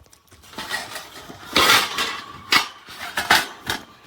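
Hard parts of a plastic bird travel carrier being handled, clattering and clinking, with a few sharp knocks.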